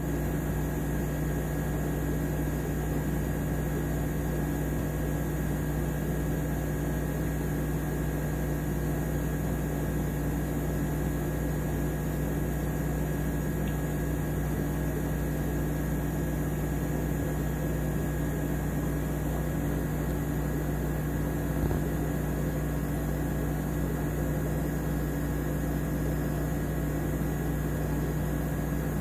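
Aquarium filter running: a steady low electrical hum with an even hiss and no change in pitch or level.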